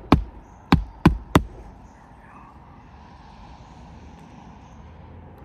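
Hammer driving roofing nails into asphalt shingles: four sharp strikes in the first second and a half, then only a faint steady background rumble.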